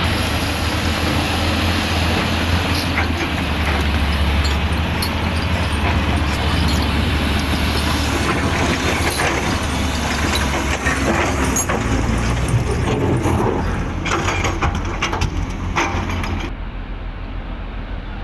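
Heavy diesel earthmoving machine running under load, with a strong low engine hum and repeated knocks and scrapes as material is dug and moved. The sound turns quieter and duller near the end.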